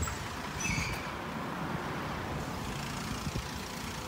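Steady road traffic noise with a faint brief high chirp about a second in.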